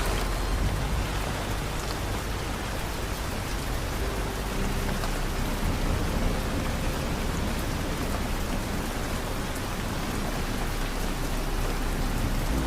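Steady rain falling, an even hiss of drops, with a low rumble underneath.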